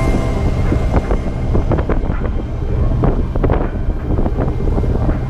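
Wind buffeting the camera's microphone on the open deck of a boat under way: a steady low rumble with irregular gusts.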